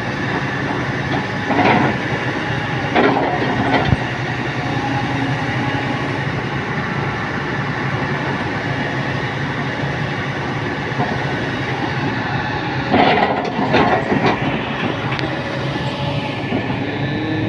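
Excavator's diesel engine running steadily, with louder bursts of metal clanking and scraping as the machine digs: two within the first four seconds and a cluster about three-quarters of the way through.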